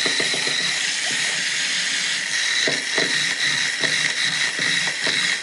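Clockwork wind-up toy running: its spring motor whirs in a steady hiss, with irregular clicks and knocks as the toy moves and tips over on the tabletop.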